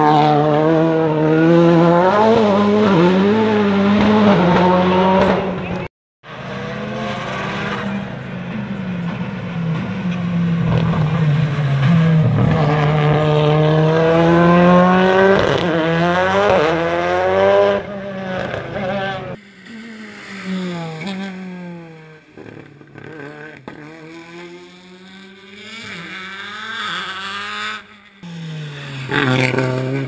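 Skoda Fabia WRC four-wheel-drive hill-climb car's engine accelerating hard, its pitch climbing and then dropping back with each upshift, heard over several passes.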